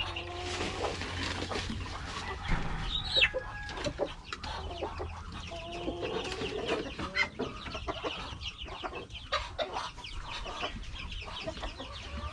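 A flock of chickens clucking and squawking, many short calls overlapping, with one higher falling call about three seconds in.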